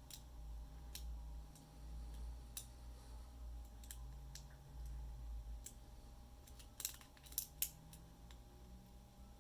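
Metal lock pick and tension tool clicking faintly in the keyway of a ten-wafer lockout padlock during single-pin picking, with scattered light clicks and a few sharper ones about seven seconds in.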